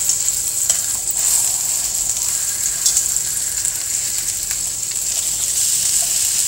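Thin-cut chicken breasts sizzling steadily as they brown in olive oil in a skillet. A few short clicks of metal tongs against the pan come as the pieces are turned.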